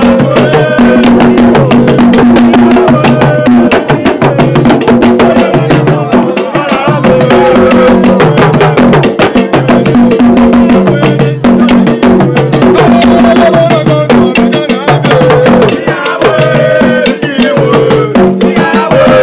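A group of men singing a Ga traditional song together over fast, dense percussion of sticks struck together and drums.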